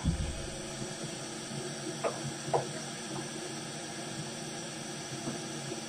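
Steady hiss with a faint hum, a low thump right at the start, and two brief soft sounds a little after two seconds in.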